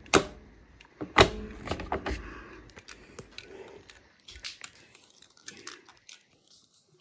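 Sharp clicks and knocks of something being handled: two loud clicks about a second apart, then fainter scattered taps and rustling.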